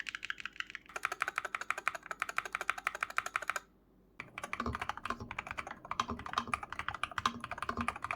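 Fast typing on an Attack Shark X68HE keyboard with Outemu magnetic (Hall-effect) switches in a tray-mount case: a rapid run of keystroke clicks. The typing breaks off briefly just before four seconds in, then resumes with a deeper, fuller keystroke sound.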